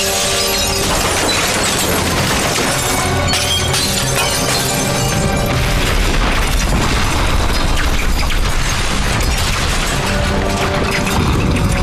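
Film soundtrack music with loud crashing and booming impact effects mixed over it.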